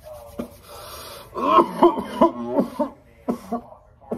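A long breathy hiss of a man taking a hit from a disposable vape, then throat clearing and coughing.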